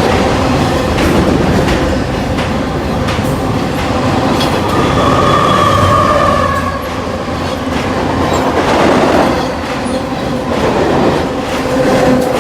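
Train passing overhead at close range: a loud, steady rumble with rapid wheel clatter, and a high wheel squeal about midway.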